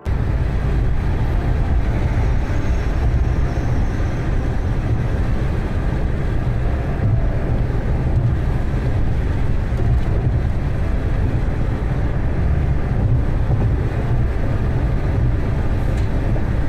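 A car driving on a highway: steady, unbroken road and engine rumble, heaviest in the low end.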